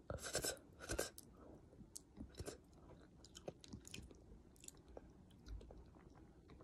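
A person eating soup noodles: two loud slurps in about the first second as the noodles are drawn into the mouth, then quieter wet chewing with many small mouth clicks.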